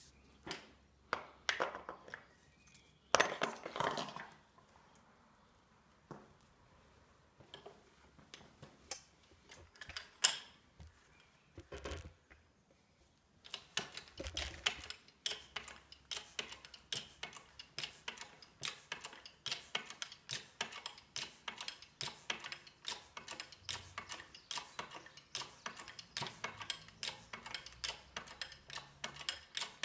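A hard disk drive knocks and clatters against a steel press frame as it is set in place, the loudest knock about three seconds in. From about halfway the 10-ton hydraulic bottle jack's handle is pumped, giving a steady, rapid run of metallic clicks as the press closes on the drive.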